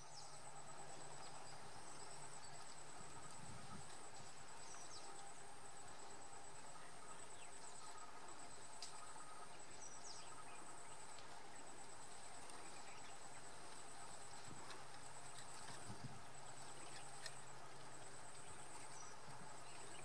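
Forest insect chorus: a steady high-pitched trill pulsing in phrases about a second long, with a few brief faint chirps over it.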